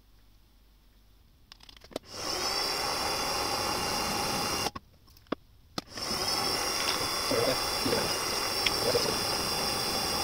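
Mill-drill spindle motor starting about two seconds in with a rising whine that settles to a steady pitch. It cuts out near the middle with a few clicks, then starts again and runs steadily while a hole is drilled into a workpiece with the quill lever.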